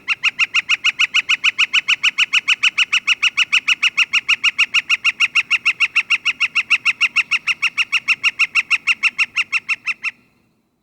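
Northern flicker giving its long call: a steady run of rapid, even, loud notes, about seven a second, that stops abruptly near the end after roughly ten seconds.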